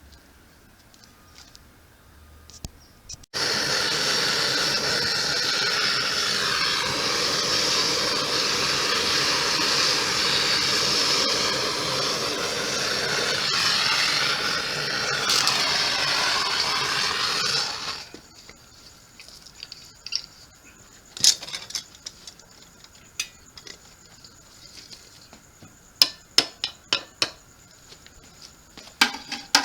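A motor running steadily for about fifteen seconds, starting and stopping abruptly, its pitch dipping and recovering partway through. Afterwards, scattered light metallic clicks and taps.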